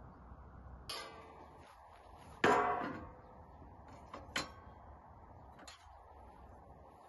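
Metal kitchenware handled on a wooden table: a clatter, then one loud ringing clang of a metal tray set down, followed by a few lighter clicks of utensils.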